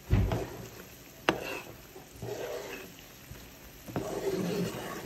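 Metal spoon stirring a bubbling sauce in a pot on the stove. A dull thump comes right at the start, the spoon clinks sharply against the pot about a second in and again near the end, and the sauce sizzles softly in between.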